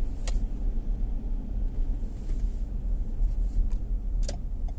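A car driving along a wet road, heard from inside the cabin: a steady low rumble of engine and tyres, with a couple of light clicks, one just after the start and one near the end.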